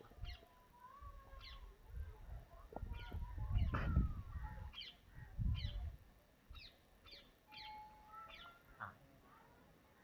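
Birds chirping over and over in short, quick, falling notes, with a few longer held notes mixed in. Underneath is a low rumble that swells to its loudest about four seconds in.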